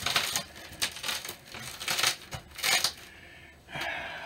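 Boots scuffing and crunching on a plywood floor strewn with grit and crumbled rotten wood, about half a dozen short crunches in the first three seconds, then a fainter scrape near the end.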